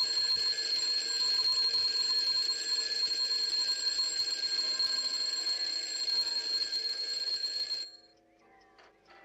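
Mechanical twin-bell alarm clock ringing continuously at a steady high pitch, then cutting off abruptly just under eight seconds in.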